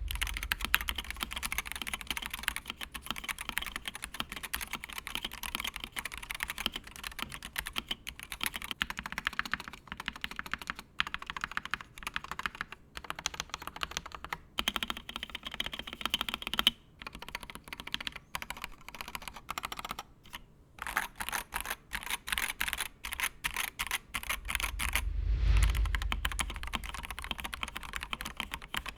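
Fast, continuous typing on a Wooting 60HE keyboard with its Lekker Hall-effect switches, mounted in the stock ABS plastic tray-mount case. The keystrokes come in a dense stream of clicks with a couple of short pauses, and a brief low rumble sounds about 25 seconds in.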